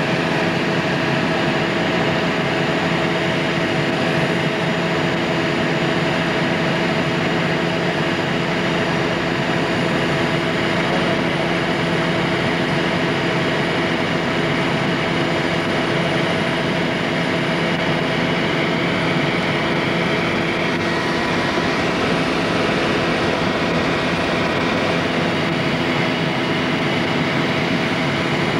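Helicopter engine and rotor drone, steady throughout with several constant hum tones over a broad noise, picked up by a camcorder on board.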